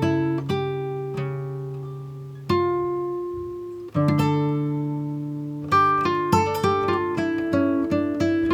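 Background music of plucked guitar: slow chords ringing out, then a quicker run of notes in the second half.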